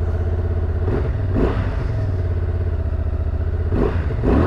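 Honda Transalp 750's parallel-twin engine idling, just started, with a couple of short throttle blips.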